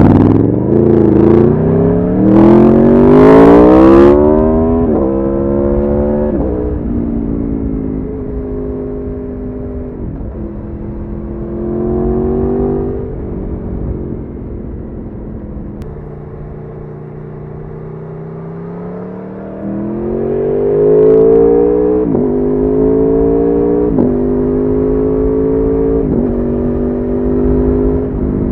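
2018 Aprilia Tuono's V4 engine under way: it accelerates hard in the first few seconds and shifts up twice, with the pitch dropping at each shift, then runs at steadier, lower revs, picks up briefly, and near the end accelerates again through three more upshifts.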